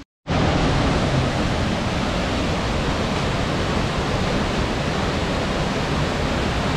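Steady rushing of Ryūzu Falls, water cascading over rocks into a pool, starting abruptly a moment in after a brief silence.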